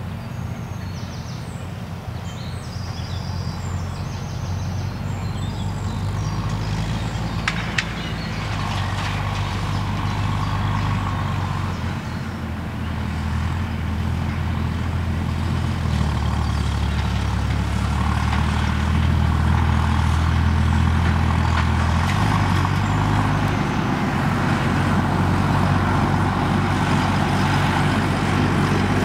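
Fendt 820 tractor engine running steadily as the tractor drives across the field towing a rotary hay rake, growing louder as it approaches.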